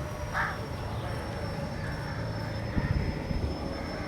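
JCB backhoe's diesel engine running steadily with its engine compartment open, a low drone with a thin steady whine above it. A crow caws once near the start, and a few low knocks come about three seconds in.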